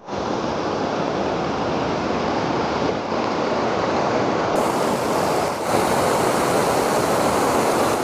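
Steady rush of river water tumbling over low rock ledges and cascades, a dense even sound of white water.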